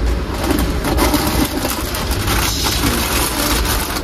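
Plastic food packets crinkling and rustling as they are pulled out of a backpack, over the steady low rumble of a moving passenger train carriage.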